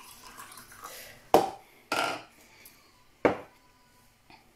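Three sharp knocks of objects being handled and set down, the first about a second and a half in and the last just past three seconds.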